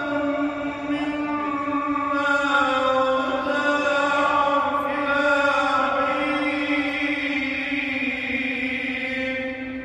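A man reciting the Quran in melodic tajweed style, one solo voice in long, slowly gliding melismatic phrases ending on a long held note. The voice stops near the end.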